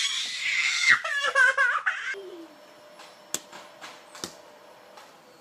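A baby squealing and giggling in high-pitched cries for about two seconds, which stop suddenly; then two short taps about a second apart, a football being kicked up off a foot.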